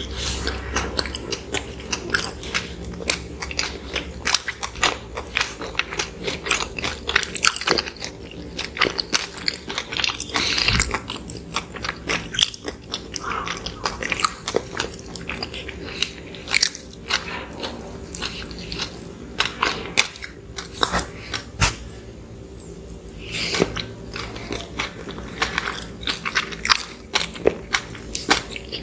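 Close-miked chewing and biting of soft microwave cinnamon rolls: a steady run of short, irregular mouth clicks and smacks.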